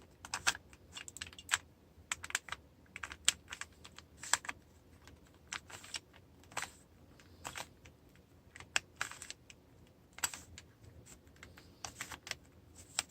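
Plastic Rubik's cube without stickers being turned by hand: its layers snap round with sharp, irregular clicks and clacks, one to a few a second, sometimes in quick clusters.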